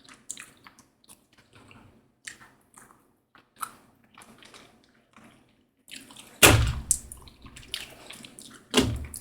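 Faint wet clicks and smacks of someone eating tamarind. Two louder bumps come about six and a half and about nine seconds in.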